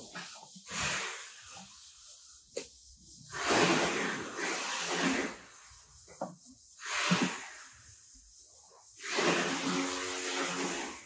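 Steel trowel scooping a dry, powdery cement-and-stone mix and tipping it into a plastic bucket: four scrape-and-pour rushes of sliding powder, a few seconds apart.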